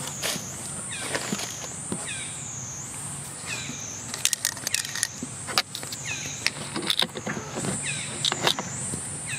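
Cicadas droning in a high, steady shrill that swells and fades about once a second. Short falling chirps and a few sharp clicks and scratches are mixed in, most of them in the second half.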